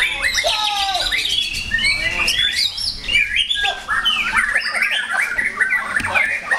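White-rumped shamas singing loudly in competition: a dense, unbroken tangle of rapid whistles, up-and-down sweeps, trills and harsh chattering notes, several songs overlapping.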